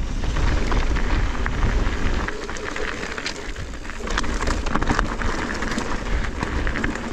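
Mountain bike descending a rocky trail: tyres crackling over loose stones with scattered clicks and rattles from the bike, over a steady low rumble of wind buffeting the action-camera microphone.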